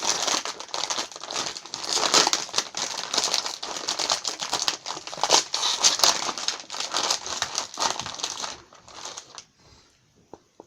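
Crinkly cookie packaging crackling and rustling as it is handled and pulled open. The crinkling dies away about three-quarters of the way through, leaving a few faint clicks.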